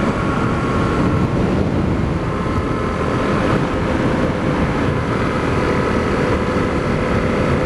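Honda CRF250L's single-cylinder engine running at steady road speed, mixed with wind and road noise, as heard from a helmet-mounted camera.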